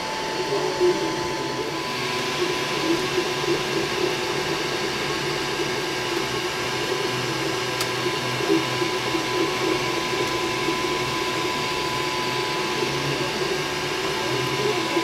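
QIDI X-MAX 3D printer running a print: a steady fan hum under a wavering whine from the motors driving the print head.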